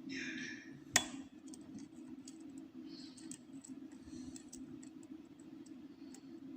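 Lock pick and tension tool working the pins of a pin-tumbler challenge lock: a short scraping, then one sharp click about a second in, followed by scattered small clicks, over a steady low hum.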